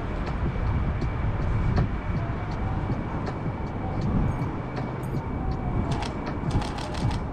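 Steady low rumble of city traffic with scattered sharp clicks, several in quick succession near the end.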